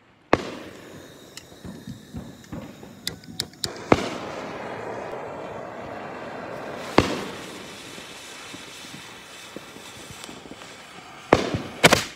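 Fireworks going off close by: a handful of loud, sharp bangs a few seconds apart, the last two in quick succession near the end, with smaller crackling pops and a continuous crackling hiss between them.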